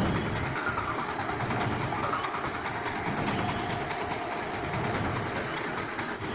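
A tractor engine running steadily.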